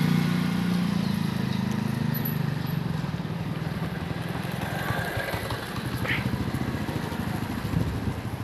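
A motor vehicle engine running, loudest at the start and fading away over the first three seconds, over steady outdoor background noise.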